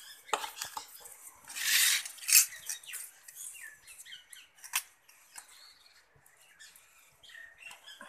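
A metal spoon scraping and clinking against a stainless steel bowl as a mashed jujube and spice mix is spooned into a small bowl. There is a louder rustling scrape about two seconds in, and a few sharp knocks.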